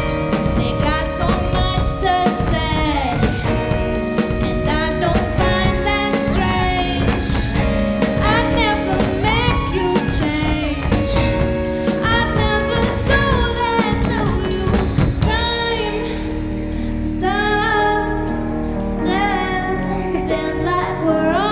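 Music: a woman singing a pop song over a band with drums; about three-quarters of the way through the drums drop out and the backing turns softer under the voice.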